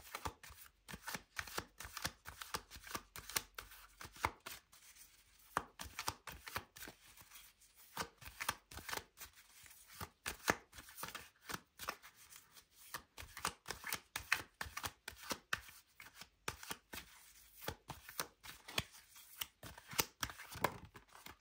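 A deck of tarot cards being shuffled by hand: a quiet, dense run of soft card clicks and slaps, several a second.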